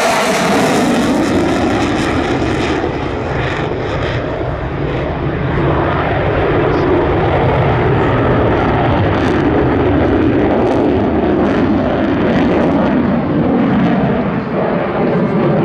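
Polish Air Force F-16 fighter jet with its Pratt & Whitney F100 turbofan roaring continuously and loudly as it flies its display. The tone sweeps up and down as the jet moves. The hiss at the top fades after the first couple of seconds.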